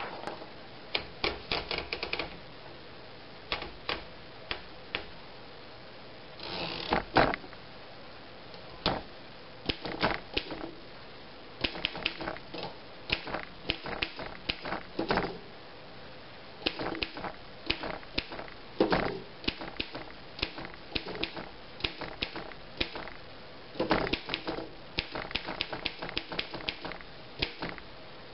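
1929 Underwood No. 5 manual typewriter being typed on: quick runs of sharp key strikes with short pauses between them.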